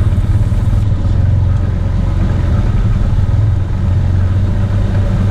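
Engine of a side-by-side spray rig running steadily at an even speed, coming in abruptly at the start.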